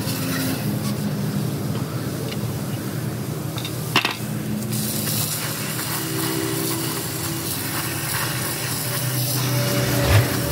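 Pressure washer spraying a truck clutch pressure plate: the steady hiss of the water jet over the hum of the washer's pump, with a sharp knock about four seconds in and a low thump near the end.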